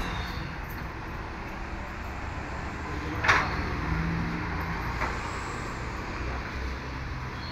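Steady low rumble of vehicle engines, with one sharp knock about three seconds in and a lighter one about five seconds in.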